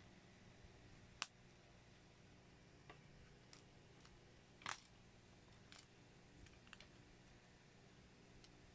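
Small plastic building bricks giving a few short, sharp clicks as they are handled and pressed together by hand, over a faint steady hum. The loudest click comes about a second in, and a slightly longer click-and-rattle comes around the middle.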